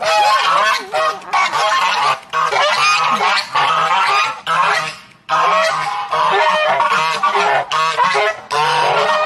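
A group of domestic geese honking loudly, several calling over one another in a near-continuous din, with a short pause about five seconds in.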